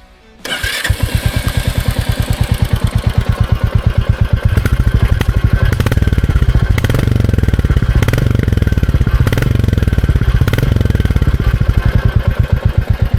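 Royal Enfield Classic 350's single-cylinder engine starting up about half a second in, then running at idle with its steady, even exhaust thump.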